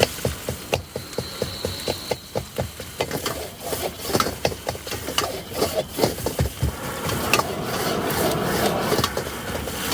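Metal spatula scraping and knocking against a wok while fried rice is stir-fried: rapid strikes, about four or five a second at first, with a steadier rushing noise building in the last few seconds.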